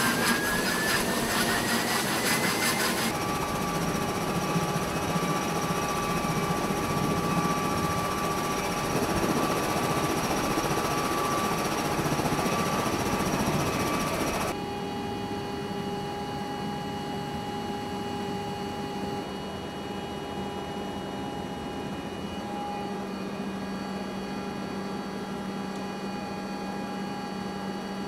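MV-22 Osprey tiltrotor's turboshaft engines and proprotors running, with a whine rising in pitch over the first few seconds before holding steady. About halfway through the sound changes abruptly to a quieter steady drone with several fixed whining tones, as heard inside the aircraft's cabin.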